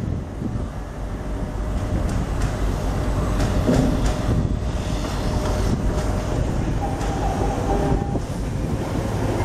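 Electric passenger train running over the rails, a steady low rumble with some wheel and rail clatter and a faint whine.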